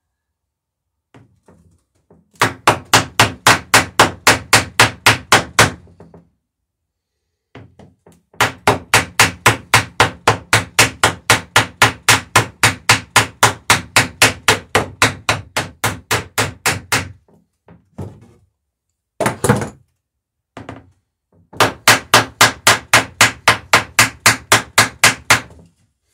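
A hammer peening over rivets in the lapped planks of a wooden dory: three long runs of quick, even blows, about five a second, with a few single taps between them.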